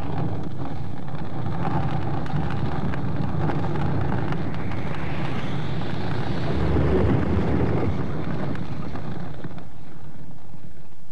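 A timber-frame house burning after being set alight by a lava flow: the fire makes a steady rushing noise with faint scattered crackles.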